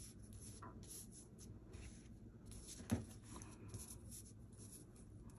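Faint rustling and sliding of paper pattern pieces and cotton fabric as they are smoothed and positioned by hand on a table, with one sharp tap about three seconds in.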